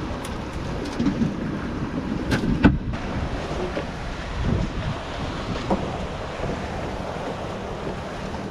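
Wind buffeting the microphone over the wash of choppy sea around a small boat, with a few short knocks about two and a half seconds in.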